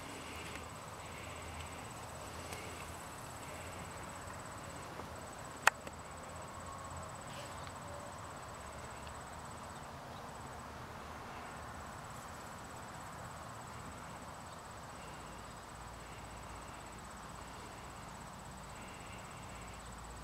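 Quiet summer outdoor ambience: insects trilling with a steady high-pitched tone, and one sharp click about six seconds in.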